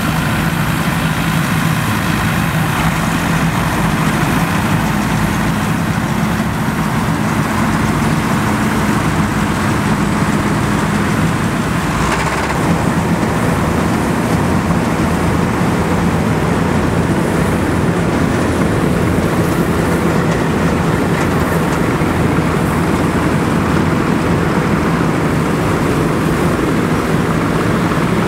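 Vintage Nuffield tractors and Dronningborg combines running steadily while harvesting: a continuous, even drone of several engines and machinery working together.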